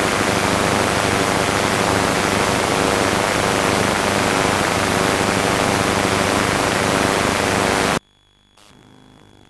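Loud, steady hiss like television static, cutting off suddenly about a second and a half before the end.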